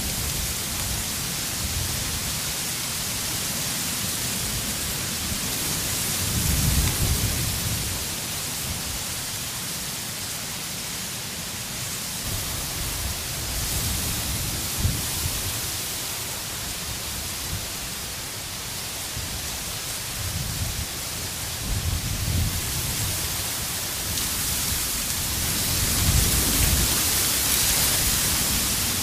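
Dry common reeds rustling and brushing against each other in the wind: a steady hiss, with low gusts of wind swelling several times.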